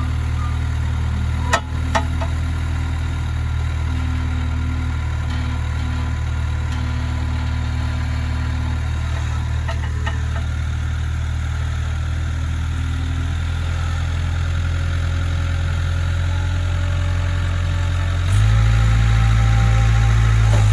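Skid steer's engine running steadily, with two sharp knocks about a second and a half in. Near the end the engine note steps up and gets louder.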